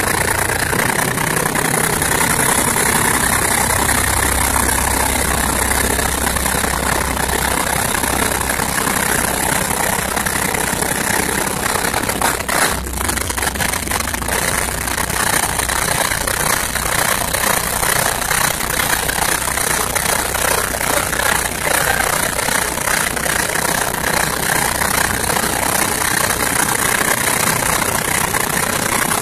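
Pilot boat's engine running steadily at low speed while the boat holds alongside a ship's hull, with a single short knock near the middle.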